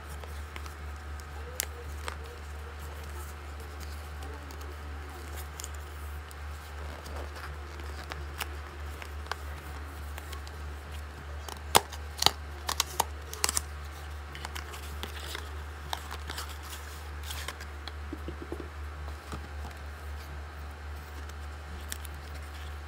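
Cardboard earbuds box and paper insert being handled and opened: scattered clicks and rustles, with a quick run of sharp snaps about twelve seconds in, over a steady low hum.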